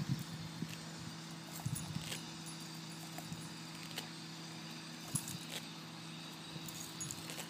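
Faint, scattered light clicks and jingles from a Boston terrier moving about on the grass with its collar and a ball, over a steady low hum.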